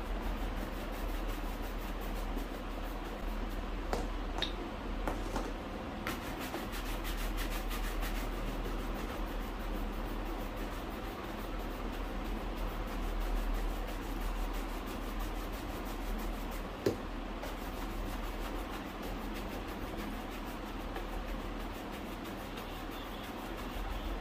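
Steady rubbing on a leather shoe during polishing, with a few light clicks, the sharpest about three-quarters of the way through.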